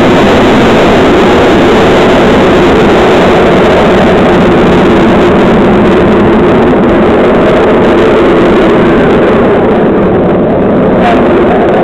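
Aircraft engine roar at an airshow: loud and steady, overloading the microphone, easing slightly near the end.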